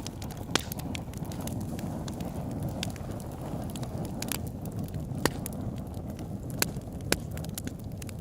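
Campfire crackling: a steady low rush of burning wood with irregular sharp snaps and pops, a few of them louder than the rest.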